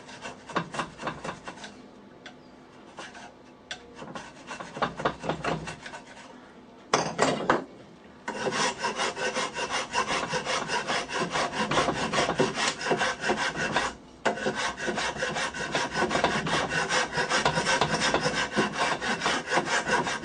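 Flat metal file worked two-handed across a hardwood part, rasping in quick back-and-forth strokes. The strokes are light at first, then steady and harder from about eight seconds in, with one short pause about two-thirds of the way through.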